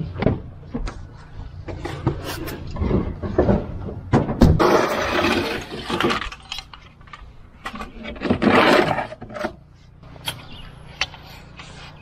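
Clicks, knocks and clatter of gear being handled at a pickup truck's utility bed: a door latch clicking and an aluminium laser-level tripod being pulled out from among lumber. There are two longer scraping, rustling stretches, about four and eight seconds in, over a low steady hum.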